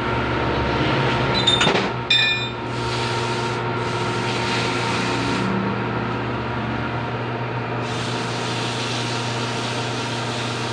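Metal lathe running steadily with a refaced flywheel turning in it while an abrasive is pressed by hand against the spinning face, a steady rubbing hiss over the motor hum: the final smoothing of the clutch face. A few clicks about two seconds in.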